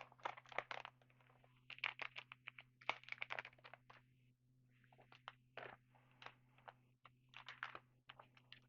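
Trading cards and their foil pack wrapper being handled and shuffled, in clusters of quick crinkling and rustling clicks, over a faint steady low hum.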